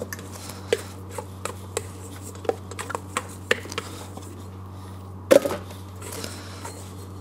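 Plastic dough scraper knocking and scraping against a stainless-steel mixer bowl while sticky brioche dough is scooped out: a run of short light knocks, with one louder knock about five seconds in, over a steady low hum.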